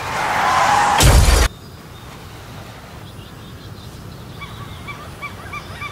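A crash sound effect: a rising noise with a wavering tone for about a second, then a loud smash lasting about half a second that cuts off suddenly. Short faint chirps repeat about twice a second near the end.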